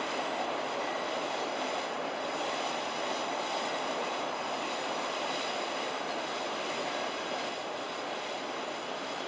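A train of DL class diesel locomotives running past, a steady rush of wheels on the rails with engine noise.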